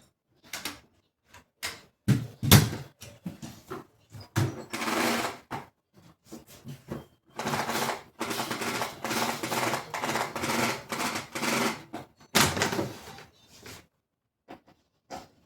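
Irregular knocks, bumps and clatter of household objects being handled, with a few seconds of denser rubbing and rustling in the middle of the stretch.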